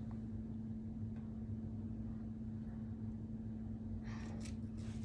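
A steady low hum holding one constant tone, with a faint brief rustle about four seconds in.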